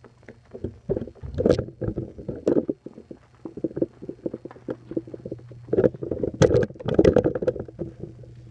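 Handling noise from a phone camera being picked up and turned: irregular rubbing and knocking right on the microphone in two main bursts, over a steady low hum.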